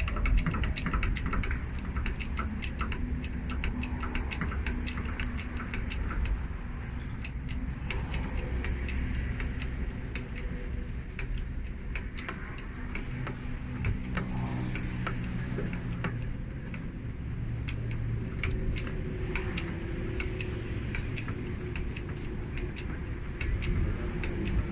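Irregular metallic clinks and ticks, like tools and metal parts being handled during a bus tyre change, over the steady low hum of an engine running.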